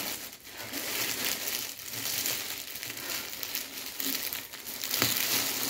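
Clear plastic bag crinkling and rustling without a break as it is handled and pulled off a metal letterbox.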